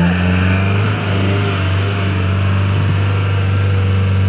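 UAZ-469 off-roader engine running at steady high revs under load as the vehicle drives through a deep mud rut.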